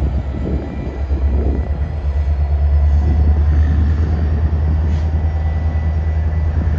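Canadian Pacific EMD SD70ACu diesel locomotive running as it slowly approaches: a steady low engine drone that grows a little louder, with a second low hum joining about two seconds in.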